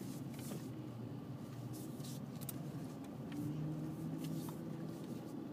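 Dodge Challenger running at low speed, heard from inside the cabin: a steady low engine and road hum, with a few light rustles and clicks.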